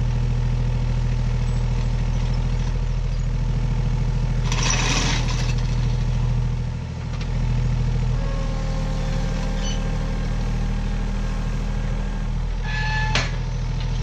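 Small 20 hp Massey Ferguson diesel compact tractor idling steadily. A short burst of noise comes about five seconds in, and a few sharp metallic clicks near the end.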